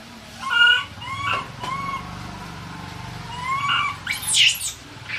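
Infant macaque's distress calls: a string of short, high whimpering coos, then a loud, harsh scream just past four seconds in.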